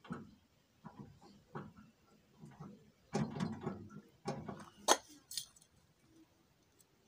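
Handling noise of fishing line being knotted and hooked onto the metal hook of a hanging dial scale: soft rustles and knocks, then a couple of sharp metallic clicks about five seconds in.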